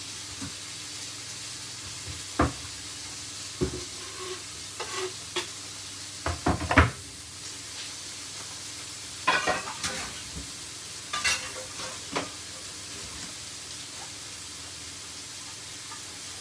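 Sirloin steaks sizzling steadily in a frying pan, with scattered knocks and clatters of kitchen handling, the loudest about seven seconds in.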